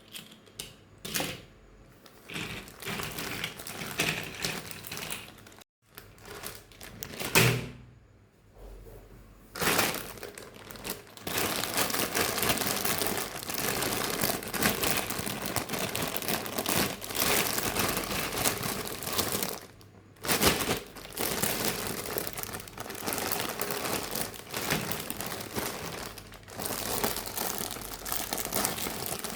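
Plastic packaging crinkling and rustling as small plastic toy figures are unpacked by hand, with a few sharp clicks and handling noises at first, then nearly continuous crinkling.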